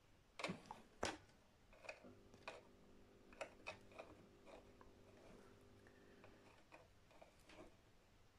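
Faint clicks and snips of side cutters nipping into guitar wire insulation: two sharper clicks about half a second and a second in, then a run of small ticks. A faint steady hum sits underneath for a few seconds in the middle.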